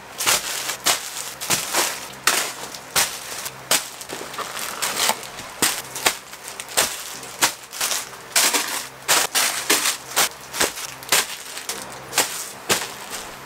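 Items being tossed down and handled one after another: a busy run of sharp crackling snaps and rustles, two or three a second.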